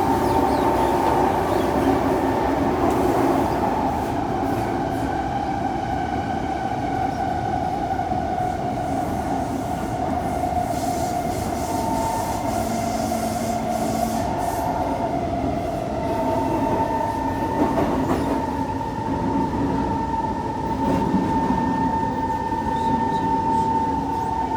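Kawasaki C151 metro train running through an underground tunnel, heard from inside the car: a steady rumble with a high, steady whine of several tones held throughout.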